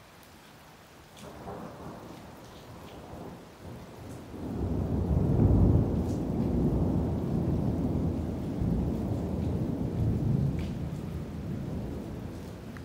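Thunder from a fairly close lightning strike: a faint low rumble about a second in, then a loud rolling rumble from about four and a half seconds that peaks soon after and slowly dies away.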